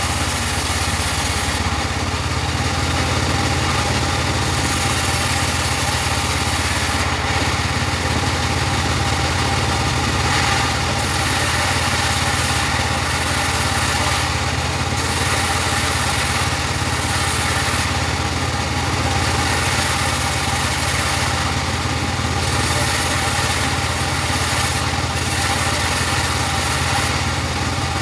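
Engine of a portable bandsaw sawmill running steadily, with a high hiss that swells and fades every few seconds.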